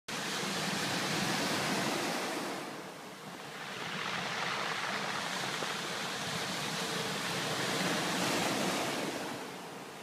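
Small sea waves breaking and washing up a pebble beach. The surf swells, eases about three seconds in, then swells again before easing near the end.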